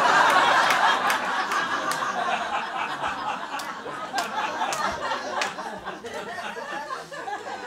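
Audience laughter, loudest at the start and slowly dying away over several seconds.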